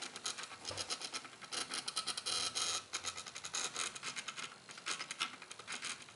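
Mini pen plotter driven by small stepper motors salvaged from DVD drives, ticking and rasping in fast, irregular runs of clicks as it traces a drawing full of curves.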